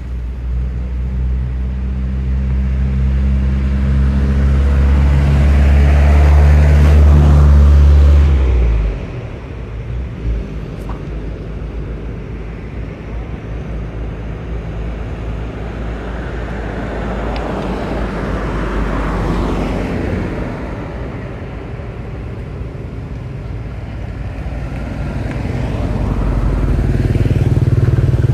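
Motor vehicle engines. A loud engine hum builds over the first eight seconds and stops suddenly about nine seconds in, then vehicle noise swells and fades, and an engine grows loud again near the end.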